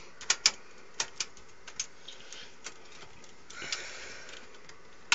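Sharp plastic clicks and taps, several in the first three seconds, a short rustle about three and a half seconds in and a louder click near the end: a front-panel cable connector being handled and pushed onto a motherboard pin header until it sits secure.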